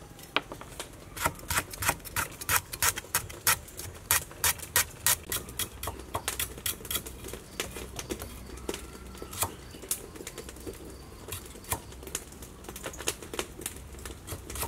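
Cleaver slicing lemongrass stalks on a round wooden chopping block: quick, uneven knocks of the blade striking the wood, a few a second.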